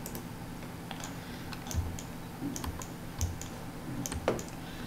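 Irregular clicks and taps of a computer keyboard and mouse while working a 3D program, about a dozen in a few seconds, some with a soft thud of the desk beneath them.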